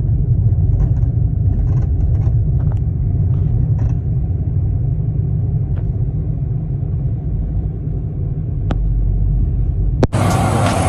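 Steady low road and engine rumble inside the cabin of a small car driving along a highway, with a few faint clicks. About ten seconds in it cuts suddenly to a louder, hissing rush.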